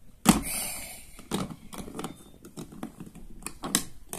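Scattered light clicks and taps of small objects being handled, with a louder rustling clatter about a third of a second in.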